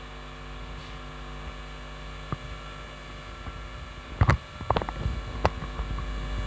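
Steady electrical mains hum with many overtones. A single click comes a little past two seconds, then a short run of sharp knocks and clicks from about four seconds in, the loudest sounds here.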